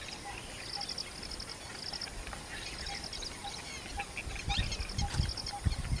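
A large flock of birds calling together, many overlapping calls with repeated high, rapidly pulsed phrases. A faint regular ticking runs underneath, about twice a second, and a few low rumbles come in the second half.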